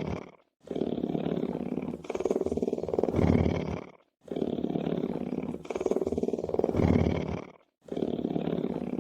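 Lion purring: a low, rough, pulsing rumble in long stretches of about three and a half seconds, each swelling louder in its second half, broken by short silent breaks. The same stretch repeats, as in a looped recording.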